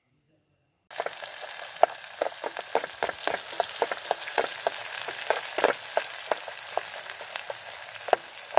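Sliced onions frying in hot mustard oil in an aluminium pot on a portable gas-canister stove, sizzling with many quick crackling pops while a metal spoon stirs them. The sizzle starts abruptly about a second in, after near silence.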